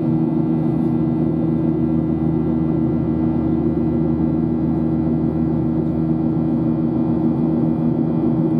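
Boeing 737 cabin noise in cruise flight: a steady engine drone with a few constant low hum tones over an even rush of air.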